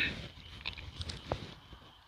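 A few short, light clicks and rustles of handling, about three spread through the first second and a half, over faint outdoor background.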